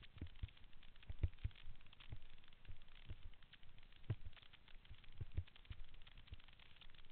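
Skis sliding over rough snow with a faint hiss, broken by irregular dull low knocks a few times a second as the skis and the body-mounted camera jolt over the bumps.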